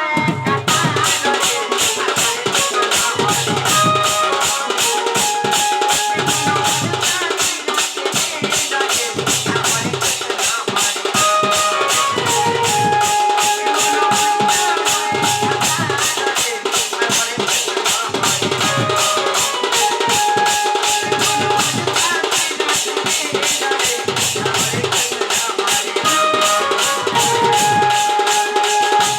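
Instrumental devotional folk music with no singing: a fast, even rattle of shaker and cymbal strokes, a deep drum beat every second or two, and a melodic instrument holding and gliding between notes.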